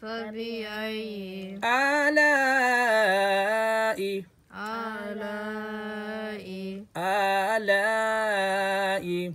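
A voice reciting the Quran in melodic tajweed style, drawing out long held vowels over several phrases with short pauses between them.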